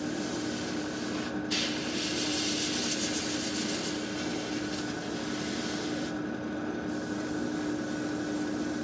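Airbrush spraying primer in hissing passes, breaking off briefly about a second in and again for most of a second around six seconds in, over the steady hum of a spray booth's extractor fan.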